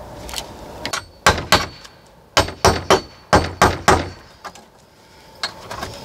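A series of sharp knocks on wood, about eight blows in quick groups of two and three, as an old wooden outhouse is knocked apart for firewood.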